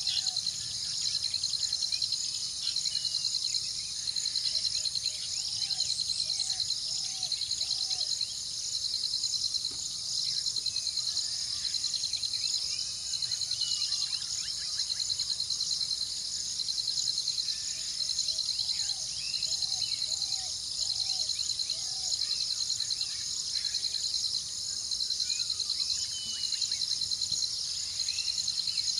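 Insects trilling in repeating pulses, each about a second long, with one starting roughly every one and a half seconds. Birds call over them: runs of four or five short, low, falling notes several times, and scattered higher chirps.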